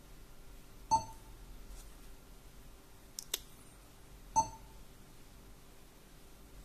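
Two short electronic beeps from an Android car head unit's touchscreen key tone, about three and a half seconds apart, each set off by a tap on the screen. Between them come two quieter sharp clicks.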